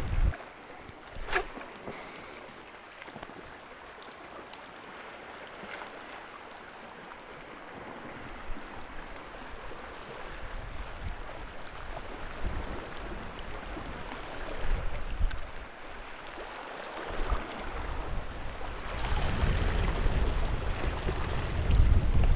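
Wind gusting across the microphone over sea water washing against the rocks, the gusts growing stronger near the end. A short click about a second in.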